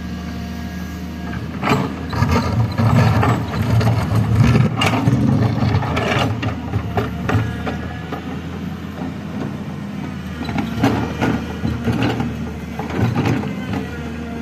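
Heavy diesel engine running steadily, with clusters of sharp clanks and knocks from an excavator loading a truck, the busiest stretch in the first half and more knocks later on.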